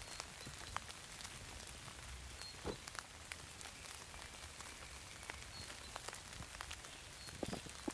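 Soft knocks of a wooden dovetailed drawer being handled on a workbench, about three seconds in and again near the end, over a faint steady patter of small ticks.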